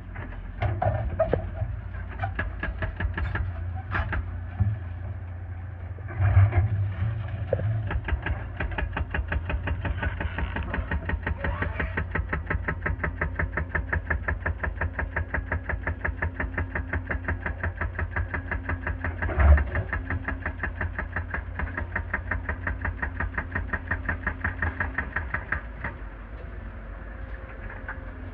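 Mini excavator's diesel engine running with a steady, even pulsing rhythm, and a few louder knocks from the machine at work, the loudest about six and a half seconds in and again near the end of the second third.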